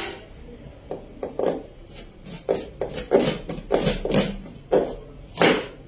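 Chef's knife slicing an onion on a cutting board: about a dozen sharp knocks of the blade onto the board, irregular, coming two or three a second.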